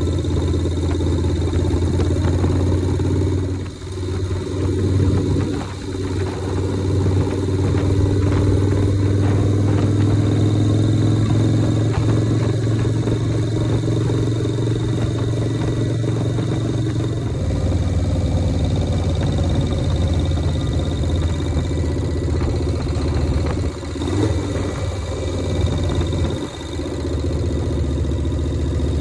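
1983 Harley-Davidson Shovelhead air-cooled V-twin of a chopper running under way, its engine note dipping briefly about four and six seconds in and twice near the end, with a change in its pitch about halfway through.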